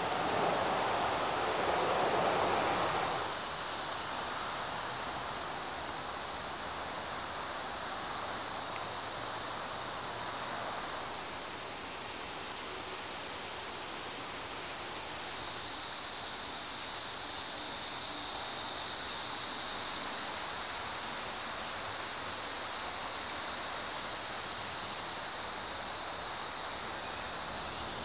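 Steady outdoor ambience: an even hiss, with a rushing in the first few seconds and a high, thin hiss that swells for several seconds around the middle.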